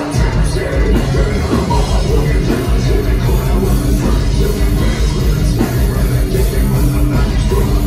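A live heavy metal band playing loudly with a driving drum beat, heard from amid the audience.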